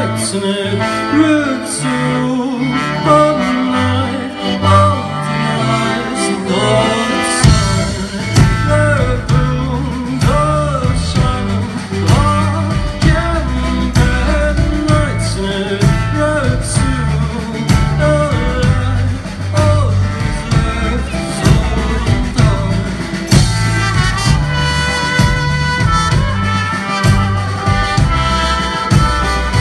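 Live band playing a brass-led folk-pop song: male lead vocals over drums and keyboard, with trombone; the full band comes in heavily about seven seconds in, and trumpet takes the lead near the end.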